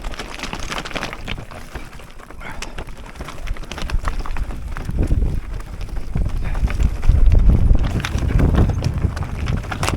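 Mountain bike descending a dirt trail: tyres on the ground and the bike rattling and knocking over bumps, with wind buffeting the microphone, the rumble getting louder from about halfway.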